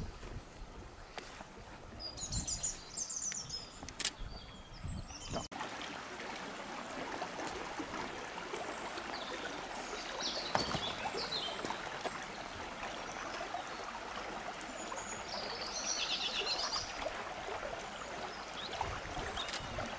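A small stream flowing steadily over shallows, a continuous rushing of water that becomes fuller after an abrupt cut about five seconds in. Small birds chirp now and then above it.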